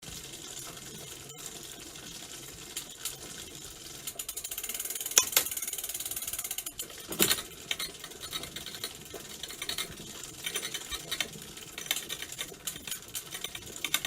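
Bicycle chain rubbing: a fast, dense run of fine metallic ticking, louder for a few seconds in the middle with a couple of sharper clicks, then going on more unevenly.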